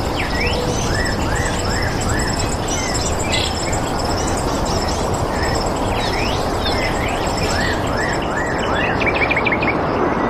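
Several wild birds chirping and calling, with short rising-and-falling whistled notes and quick runs of repeated high chirps, over a steady rushing background noise.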